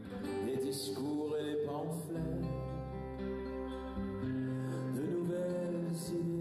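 Background music: sustained chords over a low bass note that changes every couple of seconds.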